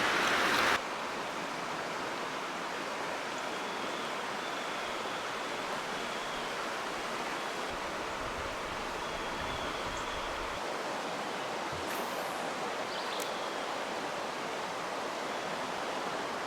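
Creek water rushing steadily over rocks, an even hiss of flowing water. A faint thin high tone comes and goes over it.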